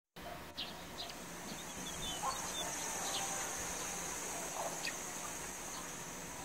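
Rural outdoor ambience: birds chirping and calling now and then over a steady high-pitched insect drone.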